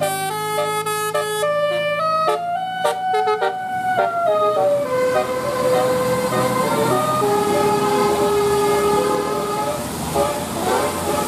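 Bus 'telolet' multi-tone musical horn playing a quick melody of short stepped notes, then longer held notes over engine and road noise.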